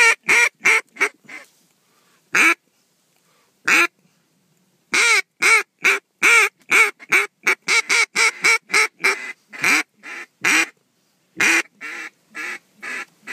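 Mallard duck call blown in loud quacks: a handful of single quacks, two spaced-out quacks, then a fast run of quacks about five seconds in, followed by a few shorter sequences near the end, calling to circling mallards.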